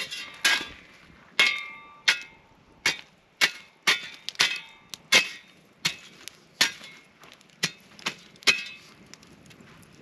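Metal shovel blade clanking and scraping against burning logs, coals and the rocks of a stone fire ring as the fire is stirred and broken up, in about fifteen irregular strikes, some with a short metallic ring, stopping about nine seconds in.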